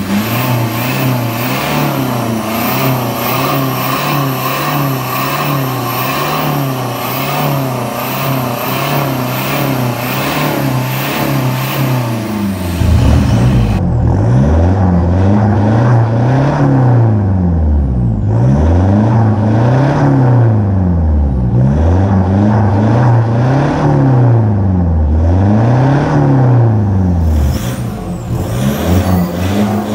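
Toyota HiAce Grandia's 3.0-litre turbodiesel breathing through an aftermarket turbo-back exhaust and open cone air intake: idling steadily, then about halfway through revved up and let fall back about five times, each rev lasting around two seconds, before dropping back to idle near the end.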